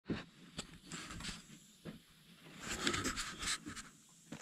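Faint handling noise from a camera being carried by hand: scattered light clicks, with a brief rustle about three seconds in.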